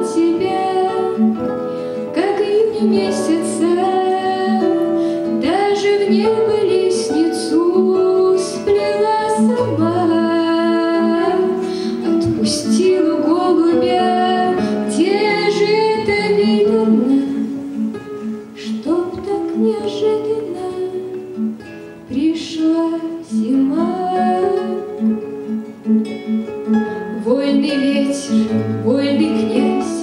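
A young woman singing a Russian bard song, accompanying herself by plucking and strumming a nylon-string classical guitar, with a second guitar.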